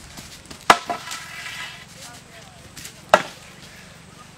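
Two hard knocks of a bamboo pole being struck down against wood or the ground, about two and a half seconds apart. Each hit is followed by a smaller rebound knock.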